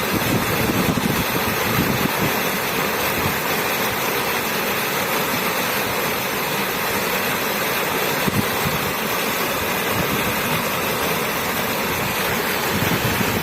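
Running water of a waterfall rushing steadily.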